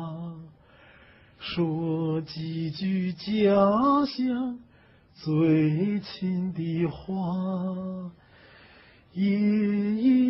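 A man singing solo and unaccompanied, a slow Chinese song in short phrases of long held notes with a slight waver, with brief pauses between phrases.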